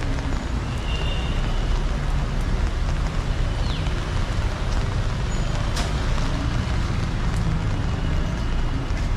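Heavy rain falling, with road traffic going by.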